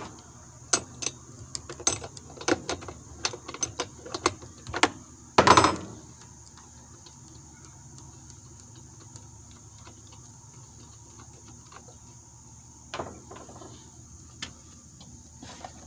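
Metal hand tool clicking and tapping on a two-stroke leaf blower's engine as it is readied for a compression test: quick clicks for the first five seconds, one louder scrape about five and a half seconds in, then two single clicks near the end.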